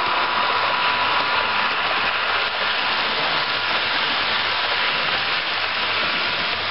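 Model trains running on a layout: a steady rushing hiss, with a faint steady tone that fades about a second in.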